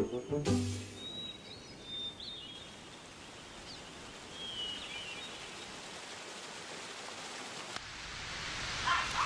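Quiet outdoor countryside ambience: a faint steady hiss with a few short, high bird chirps in the first half. A brief pitched sound comes right at the start.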